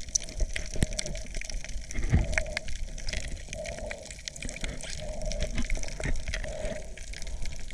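Water sloshing and rushing around a submerged camera, with many small sharp clicks and crackles scattered throughout.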